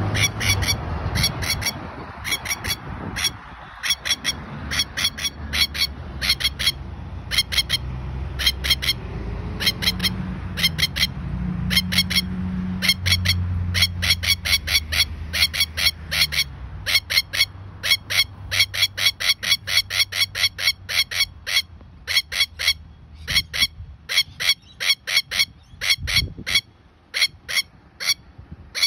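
Masked lapwing giving its harsh, rapid alarm calls in quick bursts, the sign of a nesting bird disturbed at its eggs. Road traffic rumbles low underneath for part of the time.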